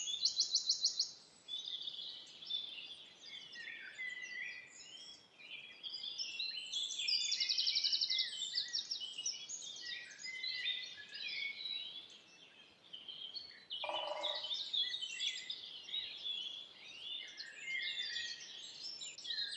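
Chorus of several forest songbirds singing at once: overlapping high chirps and whistles, with fast rattling trills at the start and again about seven seconds in, and a short lower call about two-thirds of the way through.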